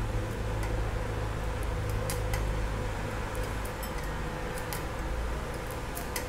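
A stick-welding electrode scratching and tapping on a steel workpiece, making scattered sharp clicks without settling into a steady arc: at 83 amps with a 2.5 mm rod the arc will not strike and melt properly. A steady machine hum runs underneath.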